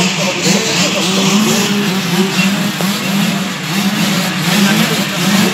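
A full start gate of motocross bikes revving together, many engines rising and falling over one another without a break, as the riders hold them up at the line before the gate drops.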